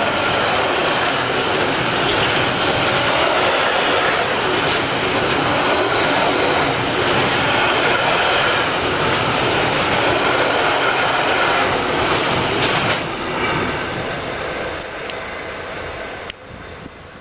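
A freight train of covered hopper wagons rolling past at speed: loud, steady wheel and rail noise with a faint squeal of wheels on rail. It dies away after about thirteen seconds as the last wagons pass, with a few last clicks over rail joints, then drops off suddenly near the end.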